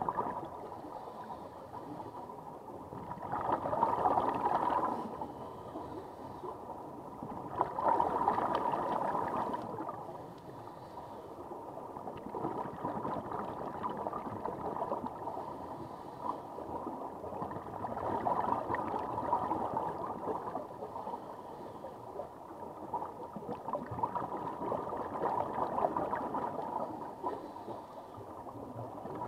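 Scuba regulator exhalations heard underwater: bursts of bubbling and gurgling every several seconds, louder in the first ten seconds, over a steady watery rush and a faint steady hum.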